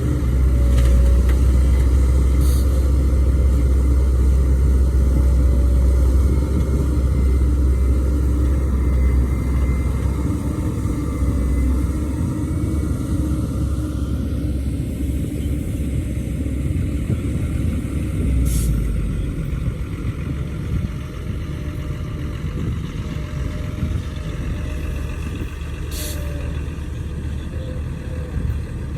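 Heavy diesel machinery running with a steady low rumble that eases off somewhat partway through, with three brief sharp hissing sounds.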